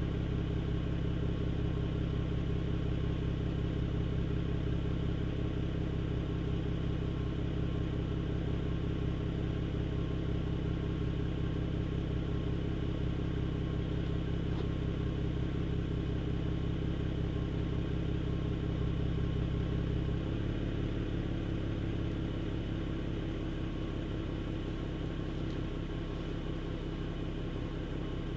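BMW N52B30 3.0-litre straight-six idling after a cold start, heard at the tailpipes of a BMW Performance exhaust whose middle silencer has been replaced by a straight pipe: a steady, deep exhaust drone. About twenty seconds in the note changes and gets slightly quieter as the raised cold-start idle is lowered.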